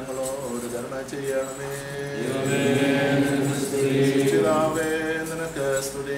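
A congregation chanting a liturgical hymn together in long, held notes, getting louder about two seconds in.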